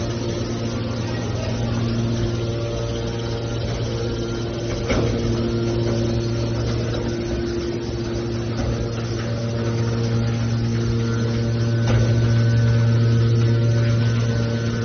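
Scrap metal baler's hydraulic power unit running with a steady low hum, with a sharp knock about five seconds in and another about twelve seconds in.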